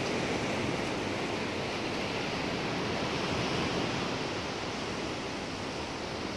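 Ocean surf washing steadily onto the beach, an even rushing noise with a little wind.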